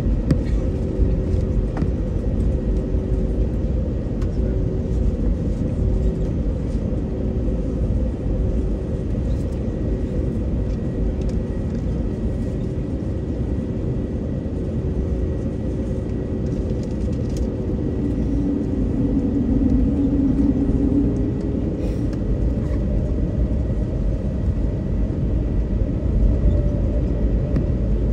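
Cabin noise inside an Airbus A320neo taxiing: a steady low rumble from the engines at taxi power and the rolling airframe, with a constant hum held at one pitch that swells slightly about two-thirds of the way in.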